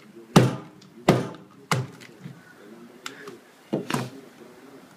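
Heavy kitchen knife chopping goosefish (anglerfish) pieces against a wooden cutting board: three sharp chops in the first two seconds, then two quick knocks close together near the four-second mark.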